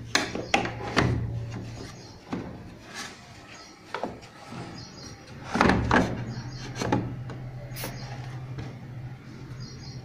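Cloth wiping and handling against the plastic and metal panels of a Samsung front-load washing machine, with several sharp knocks and bumps, the loudest about halfway through, over a low steady hum.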